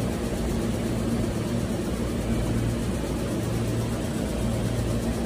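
Red Meitetsu electric train standing at the platform with its doors open, its onboard equipment giving a steady low hum.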